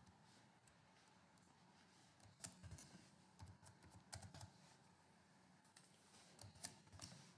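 Faint computer keyboard typing: a run of separate key clicks about two and a half seconds in, and another near the end.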